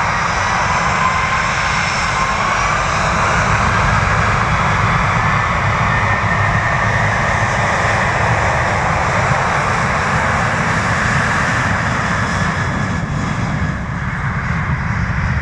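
The twin CFM56-7B24 turbofan engines of a Boeing 737-800 running at takeoff thrust: a loud, steady jet noise with whining tones that rise slightly in the first few seconds, easing a little near the end.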